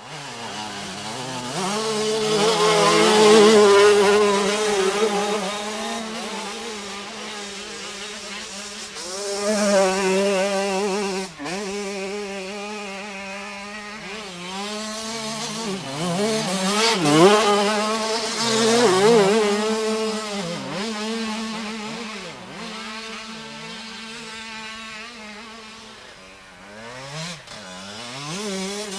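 80 cc two-stroke enduro motorcycles revving and riding past, several passes with high, shrill engine notes rising and falling and overlapping as the bikes come and go.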